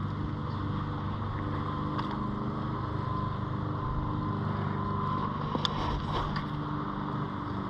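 Small boat motor running steadily with an even hum, with a few light clicks about six seconds in.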